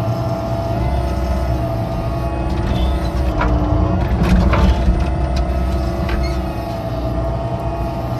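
Excavator's diesel engine running steadily, with a few short knocks or scrapes between about three and five seconds in.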